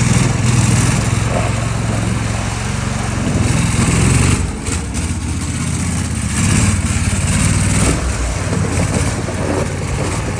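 Small boat motor running steadily under a broad rush of wind and water.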